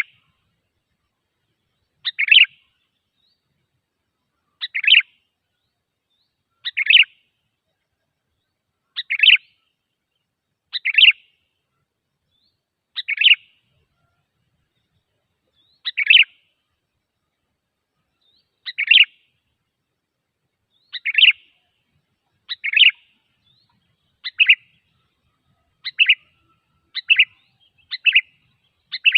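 Sooty-headed bulbul (kutilang) calls played as a bird-lure recording: short chirpy phrases, each under half a second, repeated about every two seconds with complete silence between, coming faster, about once a second, near the end.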